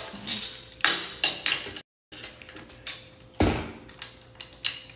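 Metal kitchen utensils clinking and scraping against dishes in a string of sharp clicks, with one duller knock about three and a half seconds in. The sound cuts out briefly about two seconds in.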